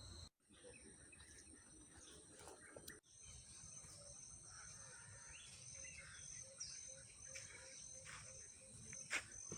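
Faint forest insects trilling steadily at a high pitch. From about four seconds in, a short call repeats a couple of times a second, and a single sharp click comes near the end. The sound drops out briefly twice, near the start and about three seconds in.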